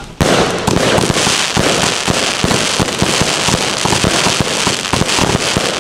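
Fireworks4all Throne 100-shot compound fireworks cake firing. A dense, unbroken run of rapid shots and crackling bursts starts about a quarter second in.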